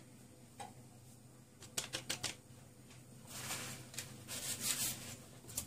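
Kitchen utensils handled against a bowl: a light click, then a quick run of four or five sharp clicks, followed by about two seconds of dry rustling and scraping, as when flour and baking powder are stirred.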